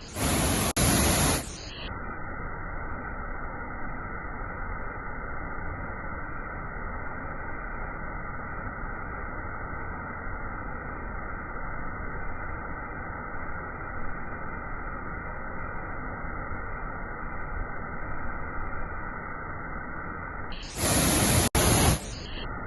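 Steady rushing of a waterfall, dull with no treble, broken by two short, much louder bursts of hiss, one just after the start and one near the end.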